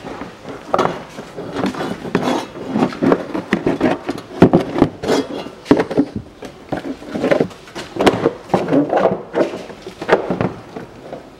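A stiff plastic wheel-arch liner being manoeuvred into a car's front wheel well: irregular rubbing, scraping and knocking of the plastic against the arch and bodywork.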